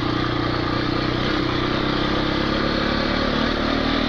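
Single-cylinder four-stroke dirt bike engine running at a steady part throttle along a rutted grass track, heard from a helmet camera, with wind and rolling noise underneath.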